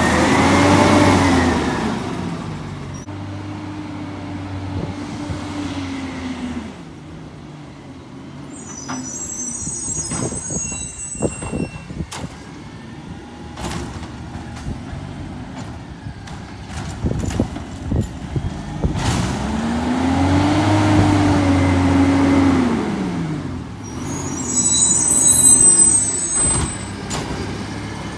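Autocar garbage truck with a compressed-natural-gas engine revving up and dropping back twice as it drives between stops and works its Bridgeport side-loading lift arm. Air-brake hisses come twice, and a string of sharp knocks falls in the middle.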